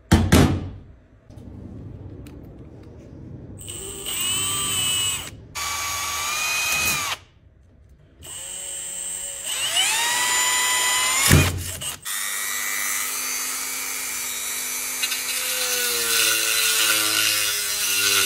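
An exhaust silencer set down on a metal bench with a thump, then a power drill running in two bursts, its whine rising as it spins up, drilling at the silencer's carbon end cap. A knock follows, then a Dremel rotary tool runs with a steady high whine as it works at the end-cap rivets to free the dB killer.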